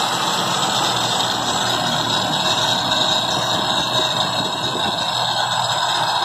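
Bosch angle grinder running steadily with no load, its speed turned down by an external voltage reducer.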